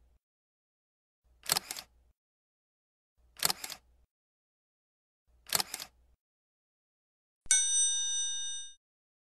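Four short, sharp double-click noises about two seconds apart, then a bright bell-like ding that rings for about a second and cuts off abruptly, with dead silence between the sounds, an edited-in sound-effect track.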